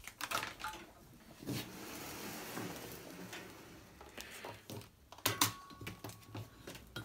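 Faint handling noise: light clicks and knocks, a stretch of rustling, then a few more clicks with a faint steady tone for about a second near the end.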